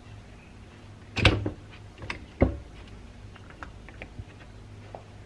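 Metal parts of a double-spool hydraulic control valve being handled as a washer is pushed at a spool end: two sharp knocks about a second apart, then a scatter of lighter clicks. A low steady hum runs underneath.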